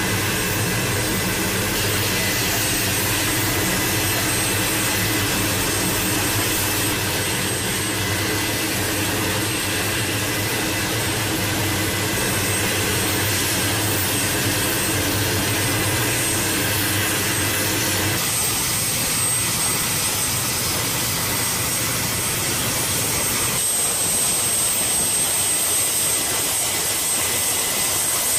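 MQ-8B Fire Scout unmanned helicopter's turboshaft engine and rotors turning at speed: a steady, loud turbine whine over a low rotor drone. About two-thirds through, the low drone drops away and the high whine carries on.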